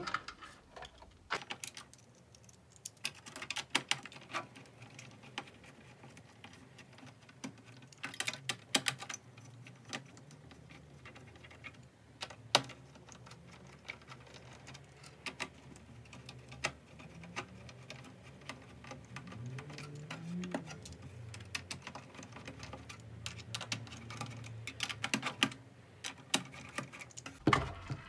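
Hand screwdriver loosening the screws of a Dell OptiPlex small-form-factor desktop's CPU heatsink: irregular small clicks and light metallic rattles, with a denser run of clicks near the end as the heatsink assembly is handled.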